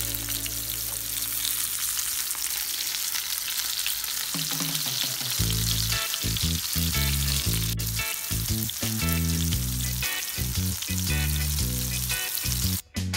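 Breaded mackerel fillets frying in hot oil in a skillet, with a steady sizzle. Background music plays under it, its bass line becoming busier about five seconds in.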